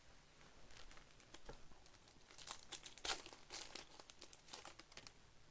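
Crinkling and tearing of a trading card pack wrapper being ripped open and handled, in a cluster of crackles through the middle, loudest about three seconds in.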